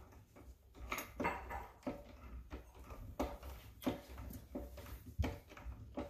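Manual screwdriver driving a stainless steel screw into a wooden cabinet door: irregular light clicks and knocks.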